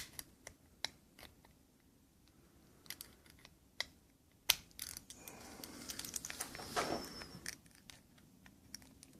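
Small sharp clicks and scraping of a tool working the bearing's retaining pin back into a baitcasting reel's side plate. A louder click comes about four and a half seconds in, followed by a few seconds of scratchy rustling.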